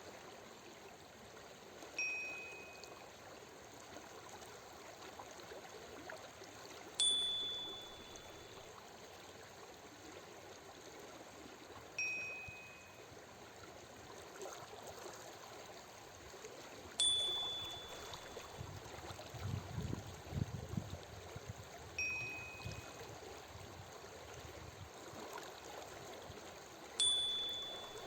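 Gentle running water with a short chime every five seconds, alternating between a lower and a higher tone, each ringing briefly and fading: breathing cues marking the switch between a five-second inhale and a five-second exhale (six breaths a minute). A brief low rumble in the water sound about two-thirds through.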